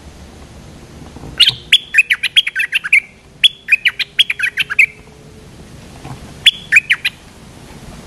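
Stripe-throated bulbul singing: three short bursts of quick, sharp chattering notes, the last burst the briefest.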